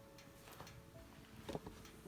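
Faint light clicks and taps of small objects being handled, with a sharper short knock about one and a half seconds in.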